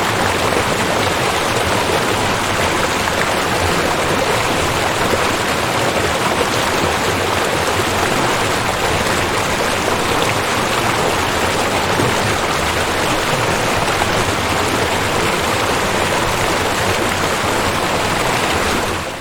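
River water flowing, a steady continuous rushing that begins to fade out right at the end.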